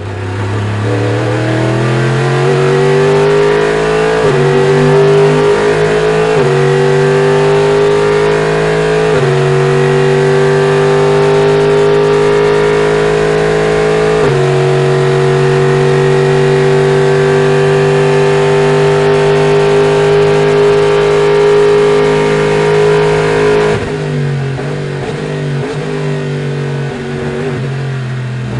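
The Chevrolet Corvette C7.R's 5.5-litre V8, heard from inside the cockpit. It accelerates hard through four upshifts, the pitch climbing and then dropping at each shift. It then holds flat out at a steady high note for about ten seconds, until near the end the driver lifts off and the note falls and turns ragged as the car slows.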